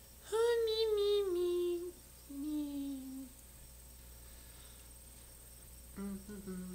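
Wordless hummed voice of a puppet butterfly, standing in for its speech: a long note that slides slightly downward, then a shorter, lower note. A brief low voice starts near the end.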